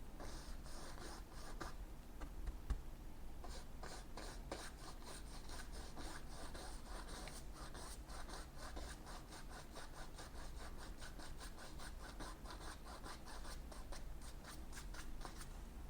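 Oil-paint fan brush scraping against a stretched canvas in many quick, short strokes as white paint goes on. The sound is faint and scratchy.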